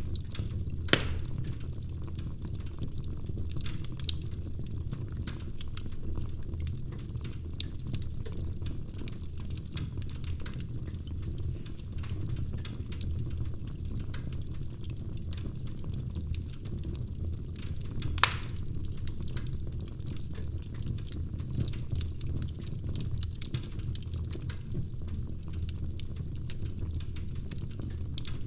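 Wood fire crackling in a fireplace: a steady low rumble of burning logs under constant small crackles, with a few louder pops, the sharpest about eighteen seconds in.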